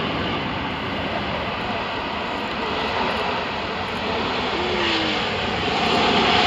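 Airbus A330 jet engines on the landing rollout: a steady rushing jet noise that swells louder over the last second or two as the airliner rolls closer, with a steady whine coming in near the end.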